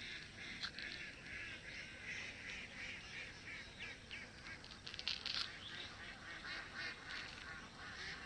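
A flock of ducks quacking continuously, many calls overlapping, with a louder cluster of calls about five seconds in.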